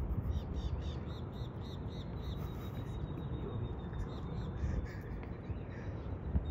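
Steady low outdoor rumble, with a run of short high chirps at about three a second in the first second and a half.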